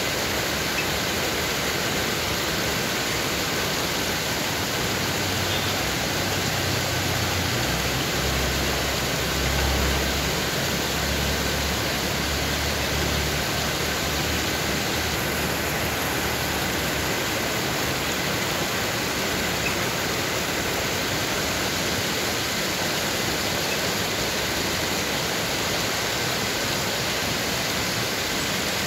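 Small waterfall cascading over rocks in a forest stream, a steady rush of water. A low rumble comes and goes in the first half.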